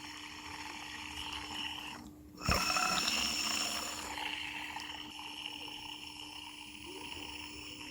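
AC blower motor spun by hand, its bearings giving a rough, rasping whirr that starts suddenly with the flick about two and a half seconds in and slowly dies away as the rotor coasts down. The roughness is the sign of dry or worn 608Z ball bearings.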